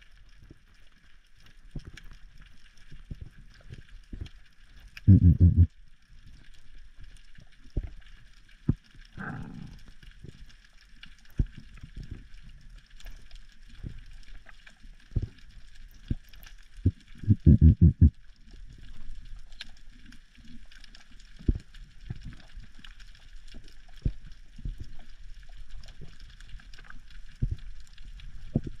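Underwater sound in shallow, wave-washed water: a steady hiss with scattered clicks and crackles. Twice, about five seconds in and again near 17 seconds, a loud burst of rapid low pulses, and a short falling gurgle around nine seconds.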